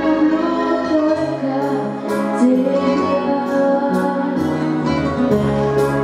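A girl singing a song into a handheld microphone, with instrumental accompaniment under her held, gliding notes.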